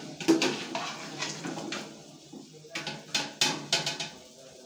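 Metal spoon scraping and knocking against the inside of a metal cooking pot as chicken and tomatoes are stirred. The sharpest clink comes about a third of a second in, and a cluster of knocks follows around three seconds in.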